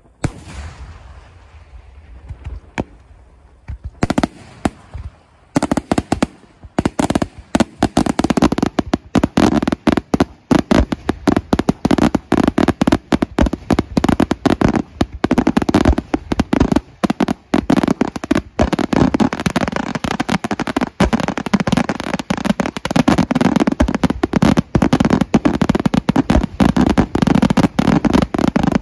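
Aerial firework shells bursting: a single loud burst with a fading crackle, a few more bursts, then from about five seconds in a dense, unbroken barrage of rapid explosions.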